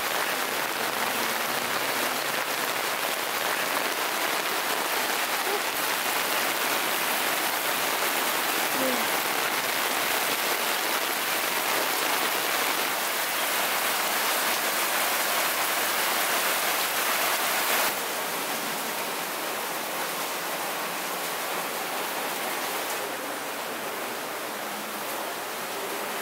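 Steady hiss of falling rain, dropping a little in level about eighteen seconds in and again near the end.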